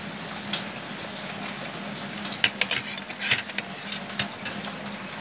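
Spoons and forks clinking and scraping against plastic plates while eating noodles, with a quick flurry of clinks about halfway through.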